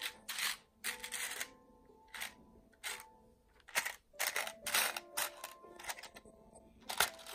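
Small plastic beads clicking and rattling as fingers rummage through them in a clear plastic box: irregular runs of sharp clicks with short pauses between.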